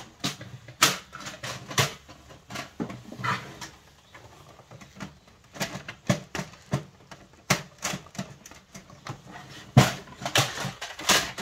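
Plastic parts of a Canon Pixma TS5140 inkjet printer being handled: irregular clicks and knocks as its paper cassette and front trays are moved and snapped into place, with the loudest knock near the end.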